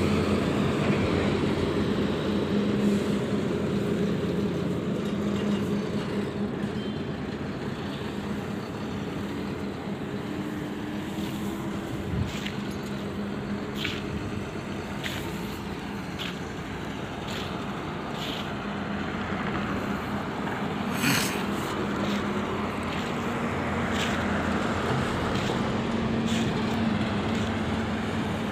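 Heavy goods truck's diesel engine running at low speed as the loaded truck pulls along and turns, a steady low drone with road traffic noise. A few short sharp sounds cut through it, the loudest about two-thirds of the way in.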